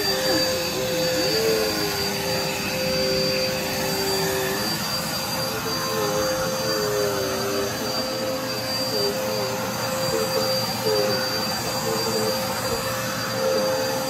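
Upright bagless vacuum cleaner running while it is pushed across carpet. The motor gives a steady whine, and its lower tone dips briefly now and then as the nozzle moves.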